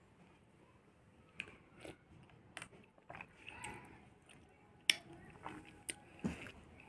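A person sipping a drink from a glass, with soft mouth and lip sounds and a scattering of small sharp clicks, the sharpest about five seconds in.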